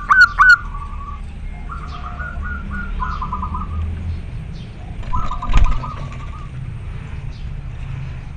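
Zebra dove (perkutut) cooing: a male's call to a female, given as quick runs of clear, high coo notes. The runs are loud at the start and again about five seconds in, with a softer run between, and a short knock comes about five and a half seconds in.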